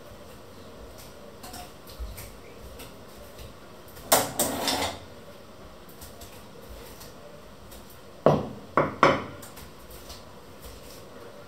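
Kitchen utensils clattering on a wooden counter: a short rattle of knocks about four seconds in, then three sharp knocks in quick succession near the end.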